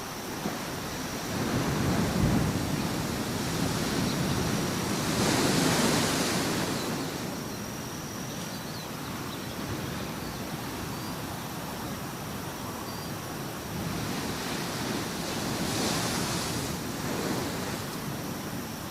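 Sea waves washing in and breaking, two swells about ten seconds apart, each rising to a hiss and then falling away.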